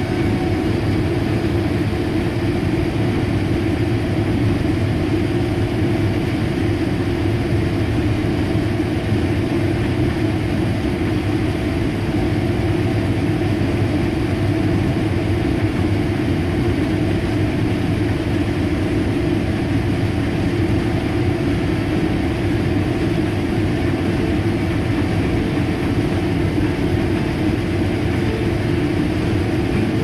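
Combine harvester running steadily while harvesting corn, heard from inside the cab as a constant drone of engine and machinery.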